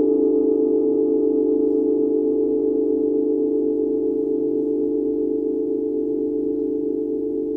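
Set of hand-forged Tibetan singing bowls ringing together as a cluster of steady tones with a slow, wavering beat, slowly fading.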